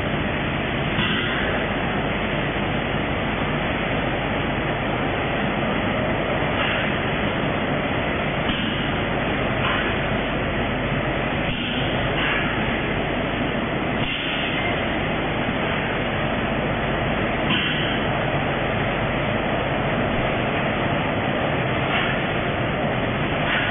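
Steady, dense running noise of a seasoning-powder packaging line: vertical form-fill-seal packing machines with auger powder fillers and conveyors all working. Short bursts of higher-pitched noise recur every second or two over the din.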